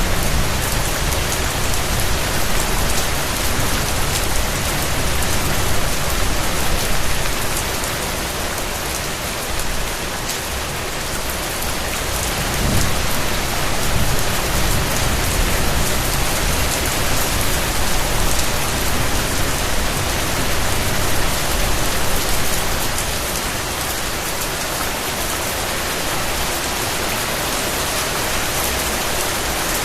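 Steady rain falling on a surface, a dense even hiss of drops, with a low rumble underneath that eases off about a third of the way in and again near the end.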